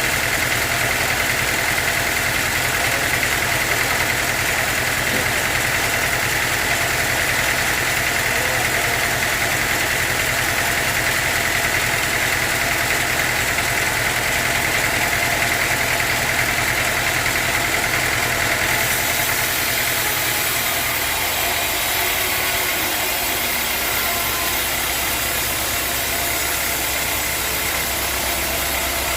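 Sawmill machinery running steadily: a low engine drone with a steady high whine over it. The sound changes abruptly about two-thirds of the way through, and the low drone shifts pitch a few seconds later.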